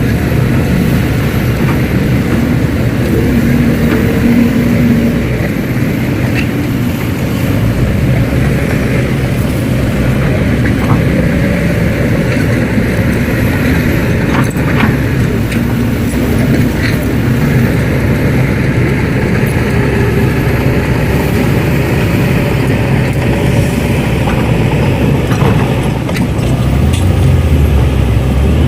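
Radio-controlled model excavator and dump truck running: a steady engine-like drone with a few faint clicks.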